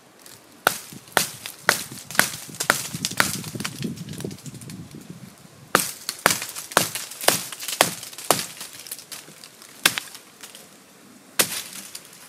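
Fixed-blade bushcraft knife chopping into the trunk of a thin standing sapling to cut a notch: sharp strikes of steel into wood, about two a second in two runs of around six, then two single strikes near the end.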